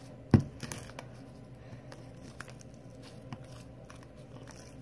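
Homemade slime being pulled and peeled off a surface by hand, making small sticky clicks and squishes, with one sharp loud click about a third of a second in.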